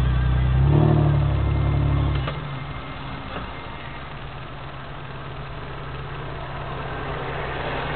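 Vehicle engine heard from inside the cabin, revving up briefly for about two seconds as the vehicle edges forward, then dropping back to a steady idle.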